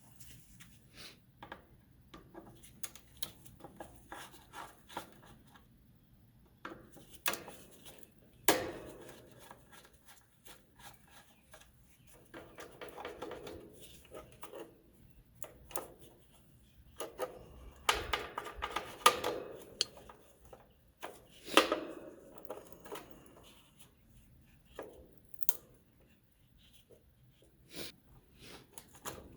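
Irregular handling noise from manual work on parts: scattered clicks, knocks and rubbing, with a few louder sharp knocks.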